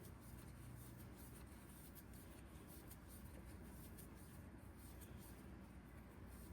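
Near silence, with faint rustling and light ticking of a crochet hook pulling yarn through loops while a chain is worked.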